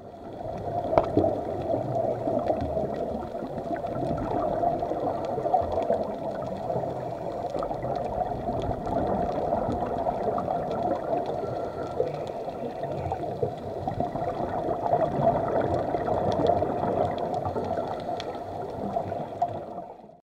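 Underwater sound picked up by a diver's camera on a reef dive: a steady, muffled gurgling rush with many scattered faint clicks. It cuts off suddenly near the end.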